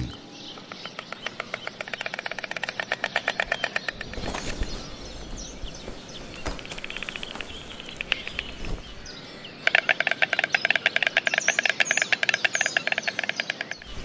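White storks clattering their bills at the nest, the rapid rattling greeting display of a pair: a softer bout early on and a louder, longer bout beginning a little past halfway. Faint high chirps of small birds can be heard alongside.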